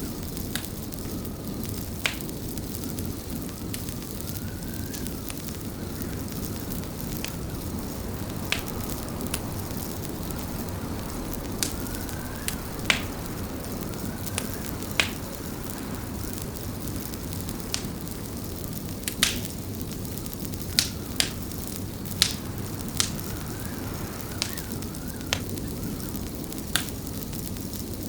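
Wood fire crackling in a fireplace: sharp, irregular pops and snaps over a steady low rush, the pops coming thicker in the second half.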